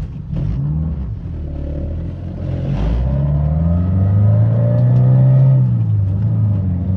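Honda Civic four-cylinder engine heard from inside the cabin, pulling under acceleration: its pitch climbs from about two and a half seconds in and falls back near the end. The car sits on stiff 95A aftermarket motor mounts that pass more engine vibration into the cabin.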